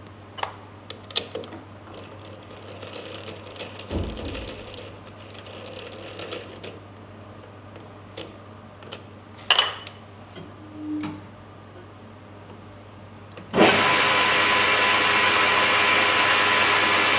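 Scattered clicks and metallic knocks of a lathe chuck being changed and a brass cue joint being mounted, then about 13.5 seconds in the lathe switches on and runs steadily, spinning the joint to check that it runs true.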